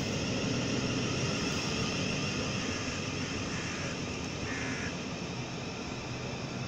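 Electric multiple-unit passenger train running beneath the footbridge and pulling away toward the tunnel: a steady rumble of wheels and running gear with a faint high whine, slowly fading.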